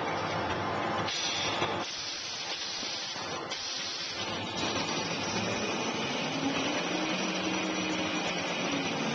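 Paper towel and toilet paper production machinery running, a dense mechanical noise with a hiss. A low hum comes in about six seconds in.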